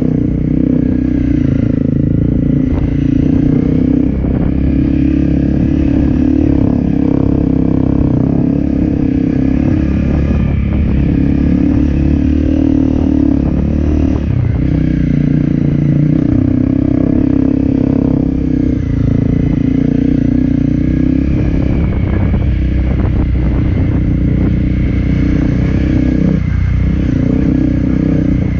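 Dirt bike engine running steadily at low speed, its note shifting up and down with the throttle, with occasional rattles and knocks from the bike over the rough lane.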